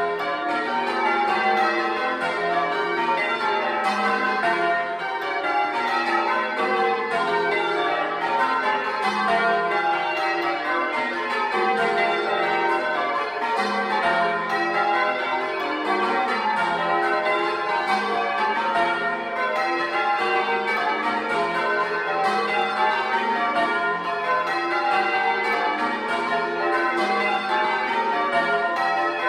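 A ring of ten church bells, the tenor about 17 cwt in F, being rung full-circle in change ringing to the method Grandsire Caters. It is heard close up in the belfry as a continuous, even run of strikes whose order keeps shifting, each bell's note hanging on under the next.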